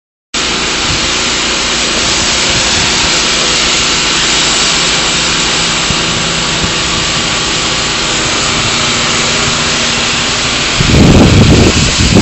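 Engine-driven spray rig running steadily, a loud even hiss over a low hum. About eleven seconds in, heavy gusts of wind buffet the microphone.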